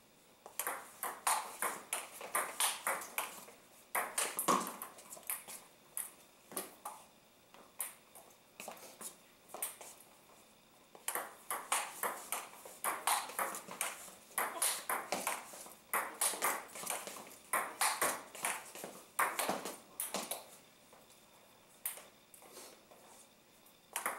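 Table tennis rallies of loop and counterloop: the ping-pong ball clicking off the rubber of the paddles and bouncing on the table in quick alternating hits. Two long rallies run with a thinner stretch between them, and the clicking stops a few seconds before the end, then starts again at the very end.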